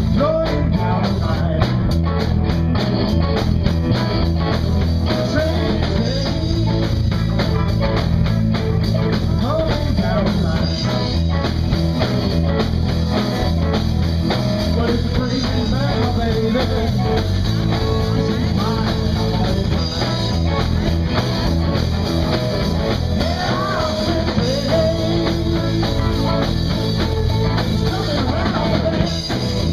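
Live band playing blues-rock: electric guitars over electric bass and a drum kit, played without a break.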